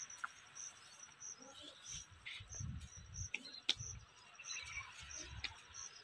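Faint, regular chirping of a cricket, about three chirps every two seconds. A few soft low thumps and clicks from hands working the dry soil and grass come through.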